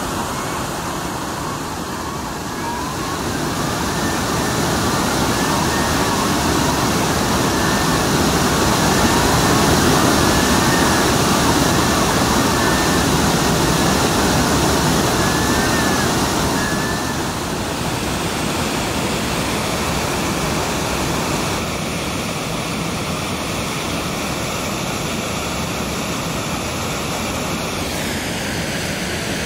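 Steady rushing of a river waterfall, with gulls calling again and again over it for the first half. The water sound changes in character about 17 and 22 seconds in.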